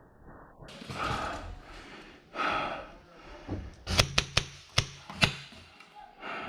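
Paintball marker shots: a quick, irregular string of about six sharp pops from about three and a half seconds in.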